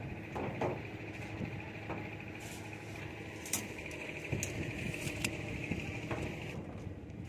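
A steady mechanical drone with a higher whine that cuts off about six and a half seconds in, under scattered light clicks and taps.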